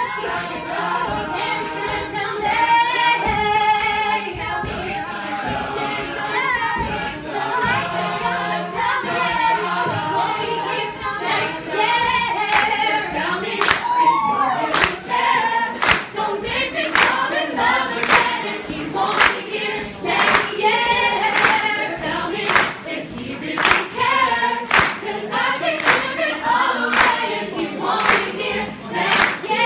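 Mixed-voice a cappella group singing a Christmas pop song, several voices in harmony. From a little before halfway through, a sharp beat lands about once a second under the singing.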